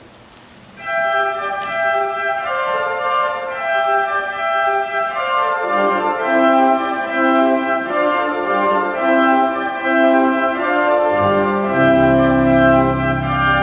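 Church organ beginning the postlude about a second in: a melody of held notes, with lower parts joining partway through and a deep pedal bass coming in near the end.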